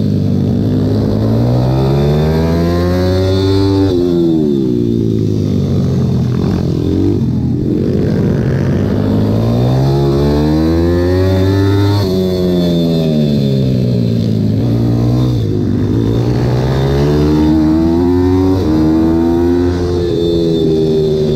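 Pit bike engine heard from onboard, revving up and down through a lap. The revs climb in long pulls and fall sharply off the throttle several times, as the bike accelerates out of corners and slows into them.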